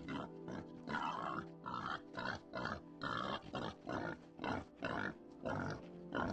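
Domestic pig grunting in a quick series of short grunts, about two or three a second.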